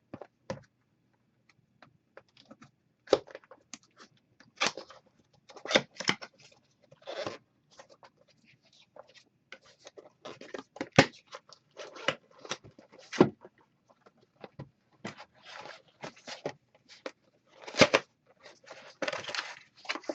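Small plastic accessories and their packaging being handled and unwrapped: irregular clicks, taps and short rustles, with a few sharper knocks, the loudest about eleven seconds in and again near the end.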